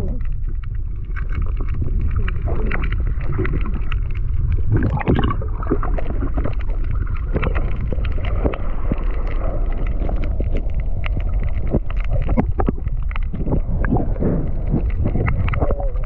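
Sound picked up by a submerged camera underwater: a steady low rumble of water noise, with many scattered clicks and crackles throughout.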